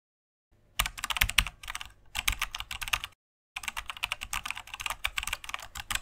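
Computer keyboard typing: rapid key clicks in two runs, starting about a second in, with a brief pause a little after three seconds. This is a typing sound effect for on-screen text being typed out letter by letter.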